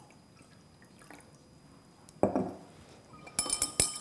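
Clear solution poured into a glass beaker, with a splash of liquid about two seconds in. Near the end come a quick run of glass clinks that ring briefly.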